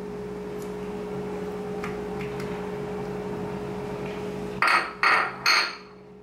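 Three quick knocks of kitchenware on a hard surface, about half a second apart, near the end, over a steady low hum.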